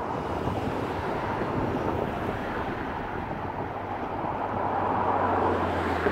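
Road traffic passing on a busy road: a steady rush of tyres and engines that swells toward the end, with a low engine hum growing near the end.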